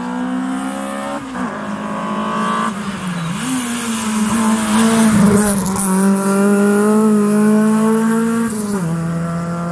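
Race car engine revving hard, climbing in pitch and breaking at each gear change as the car accelerates up the road toward and past close by; loudest in the second half, then dropping in pitch near the end as it shifts up and pulls away.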